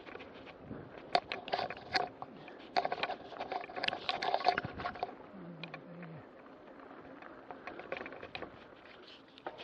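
Mountain bike rattling over a bumpy dirt track: frequent clicks and knocks from the bike and its fittings over the rolling noise of the tyres. The knocks are busiest in the first half and thin out after about five seconds.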